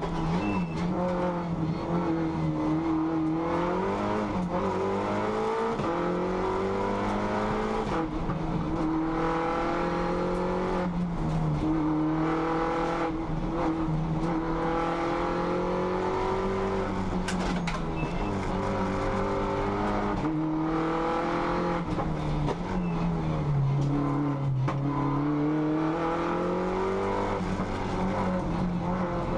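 Race car engine heard from inside the cockpit under hard acceleration on a hillclimb run. Its note climbs repeatedly and drops back at each gear change, with a deeper drop and recovery near the end.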